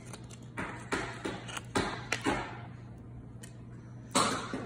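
Small clicks and rustles of hands handling earrings, metal earring hooks and a cardboard backing card, with a louder one about four seconds in.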